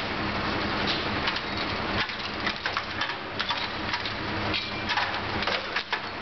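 Fire engine's turntable ladder truck running with a steady low engine hum, under a dense, continuous crackle of sharp clicks and taps.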